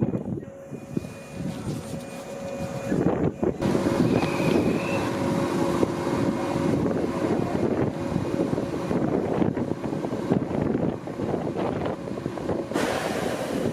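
Electric train running through the station, a steady rumble with faint hums and a brief squeal about four seconds in, with wind buffeting the microphone.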